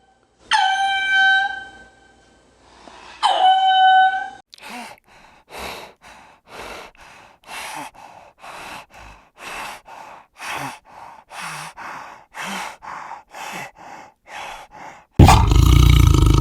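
A series of animal calls: two short pitched cries, then a long run of rasping grunts about two a second, then a loud roar that breaks in suddenly near the end.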